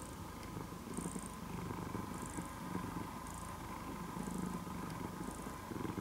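Domestic cat purring close by: a low, steady rumble that swells and eases every second or two.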